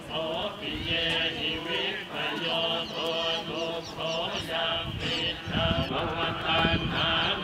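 Chanting of a Buddhist mantra: short sung phrases repeated over and over in a steady rhythm.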